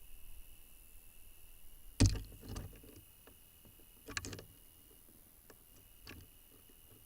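Birds moving in a nest box: a sharp knock about two seconds in with scuffling after it, another scuffle about four seconds in and a smaller one near six seconds, over a faint steady high whine.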